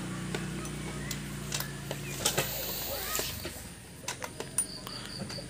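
Small metallic clicks and scrapes of a screwdriver working at a Stihl MS 310 chainsaw's carburettor, with a faint low hum that stops a little after three seconds in. Small birds chirp near the end.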